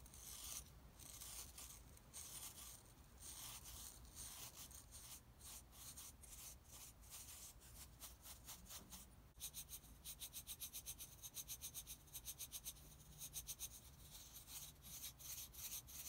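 Small wire brush scrubbing a small metal part of an antique hand plane to clean it, in short rubbing strokes. From a little past the middle the strokes turn quick and even, about five a second.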